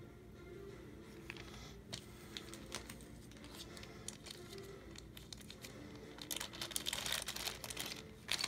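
Small plastic bag of game pieces crinkling as it is handled, with a few scattered crackles at first and a denser run of crinkling a little over six seconds in, ending in one more short burst.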